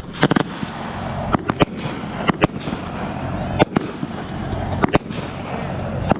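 Fireworks going off: sharp bangs at irregular intervals, some in quick clusters of two or three, over a steady background din.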